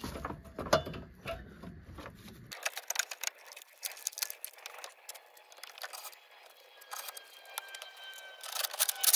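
Scattered clicks and light knocks of hand tools and car parts being handled while a front support bracket is refitted on a Range Rover. About two and a half seconds in the sound turns thinner and the clicking grows denser, with a faint thin whine.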